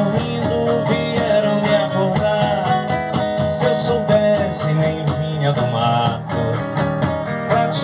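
Carimbó music played live: strummed and plucked guitar over a steady percussion beat.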